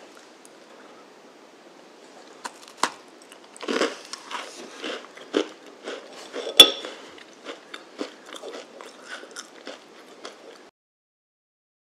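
Biting into and chewing a dense, dry homemade chocolate chip cookie close up: a couple of light clicks, then a run of crisp crunches from about four seconds in, the sharpest about halfway through, stopping suddenly near the end.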